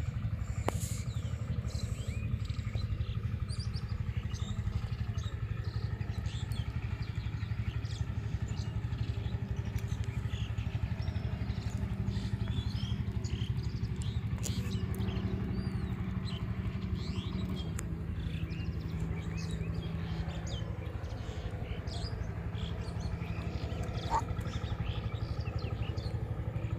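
A motor engine running steadily, with a low hum whose pitch drops slightly about two-thirds of the way through, while small birds chirp.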